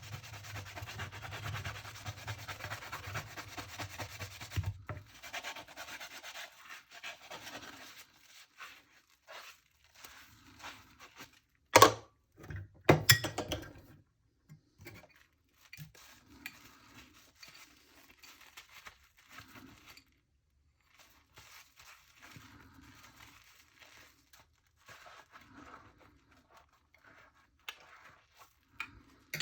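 Hand dish washing: steady rubbing for about five seconds, then two sharp knocks of dishes about twelve and thirteen seconds in, followed by soft intermittent rubbing and handling noises.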